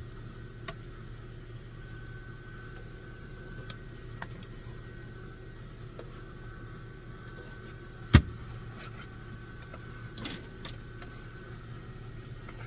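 A steady low machine hum with a few light clicks and one sharp knock about eight seconds in.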